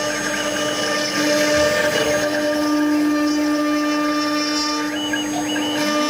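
CNC router spindle whining steadily while a small cutter carves a relief into a firewood log, over the noise of the bit chewing through wood. The pitch steps up slightly near the end.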